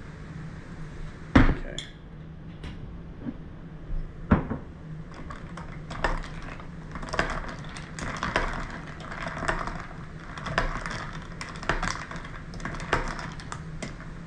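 A loud knock about a second and a half in, then a long spoon stirring a Bloody Mary over ice in a tall glass, clinking against the glass and ice about once a second.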